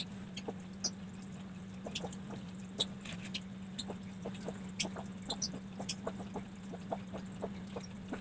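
Soft, sticky squishing with many small irregular clicks as buttery cookie dough is pressed flat and rolled between the palms, over a steady low hum.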